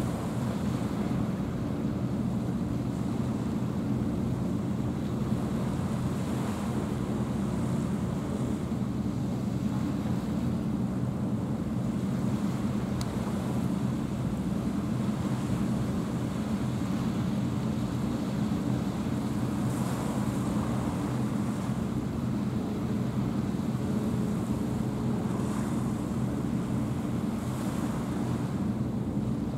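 Wind on the microphone and small waves at the shoreline, over a steady low drone of a boat's engine.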